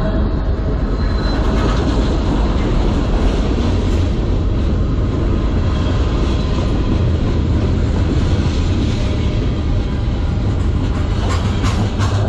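Freight cars of a CN manifest train (gondolas, then centerbeam flatcars) rolling past close by: a steady, heavy rumble of steel wheels on rail, with a few sharp clicks near the end.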